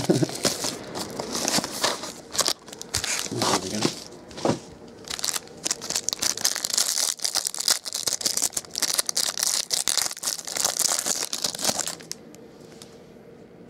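Plastic trading-card pack wrapper being torn open and crinkled by hand, a dense crackling that stops about twelve seconds in.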